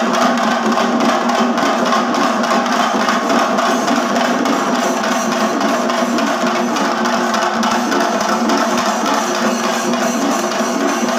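Chenda melam: a large ensemble of Kerala chenda drums beaten in a fast, dense, unbroken rhythm.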